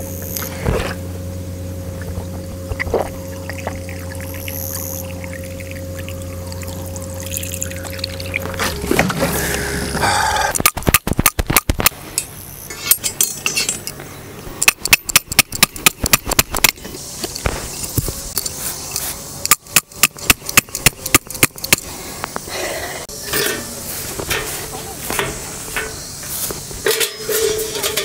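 Water poured from the spout of a plastic jerry can, then two long runs of rapid, sharp clicks and knocks as a metal camp stand is worked on.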